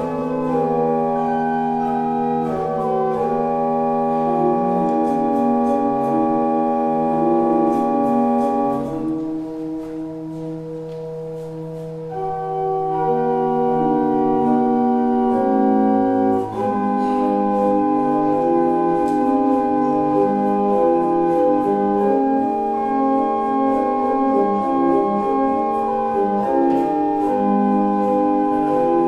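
Pipe organ playing held chords that change every second or so. About nine seconds in the sound thins and quietens for a few seconds, then builds back to full chords.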